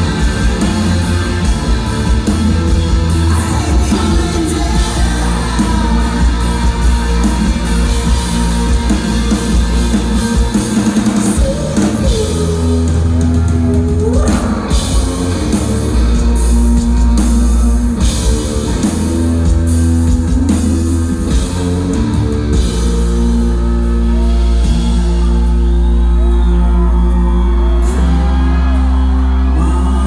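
Live rock band playing loud: distorted electric guitars, bass and drums, with a sung vocal.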